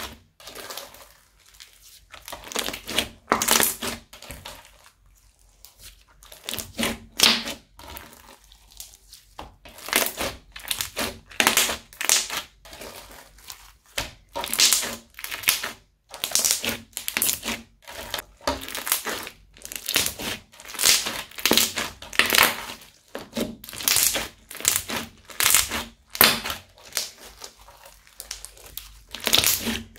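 Crunchy slime full of foam beads being squeezed, folded and stretched by hand, crackling and popping in repeated bursts, with a few short pauses between handfuls.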